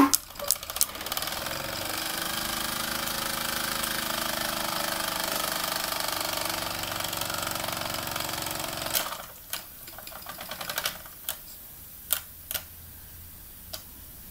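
Mamod TE1A toy steam traction engine running with a fast, steady chuffing clatter that starts about a second in and stops after about eight seconds, followed by a few sharp clicks.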